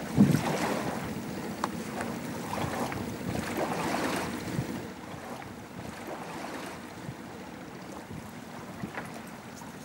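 Riverbank ambience: wind on the microphone and water lapping around a moored wooden boat, with a few small knocks. It is louder in the first half and softer after about five seconds.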